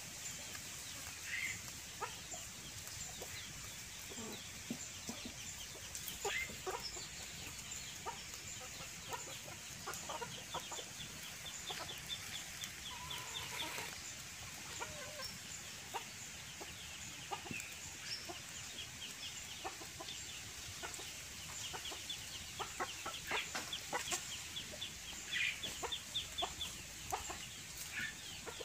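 Chickens clucking, with short, scattered calls coming more often in the second half.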